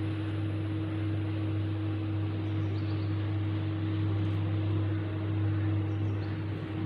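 Steady low hum with a constant higher tone and an even hiss, like a running fan or appliance.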